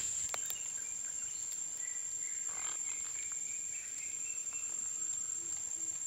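Forest ambience: a steady high-pitched insect drone like crickets, with scattered faint clicks, and a soft low call pulsing about twice a second near the end.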